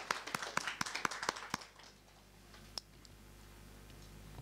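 Audience applauding, the claps thinning out and stopping about a second and a half in; then quiet room tone with a low hum and one faint tap.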